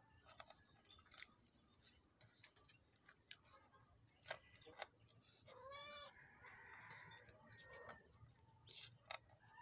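Quiet eating sounds: soft clicks and smacks of chewing and of fingers working rice, with one short animal call, rising then falling in pitch, about five and a half seconds in.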